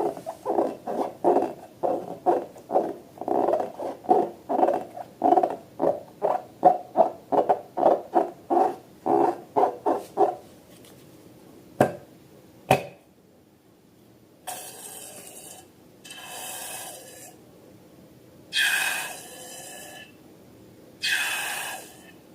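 Slime being squeezed and worked by hand: a quick run of short squelches, about two to three a second, then two sharp clicks and four longer, airier squishes.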